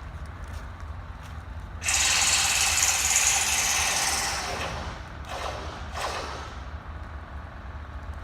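Train rolling past with a steady low rumble and wheels clicking over rail joints; about two seconds in a loud rushing noise starts suddenly, lasts about three seconds and fades, followed by two shorter bursts.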